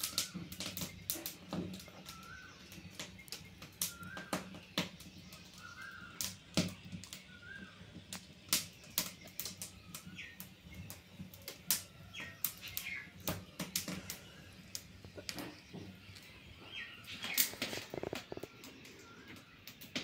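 Wood fire of thin dry twigs crackling: irregular sharp pops and snaps, some loud and some faint, coming in quick clusters at times. A few faint short chirps sound now and then.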